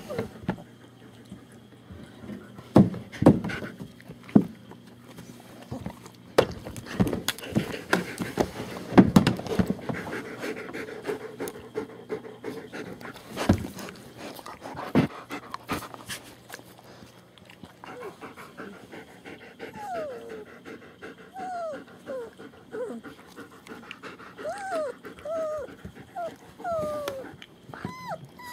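A litter of three-week-old German Shepherd puppies whimpering, with short high whines that fall in pitch and come thick and fast in the second half. Scattered knocks, the loudest sounds, fall in the first half.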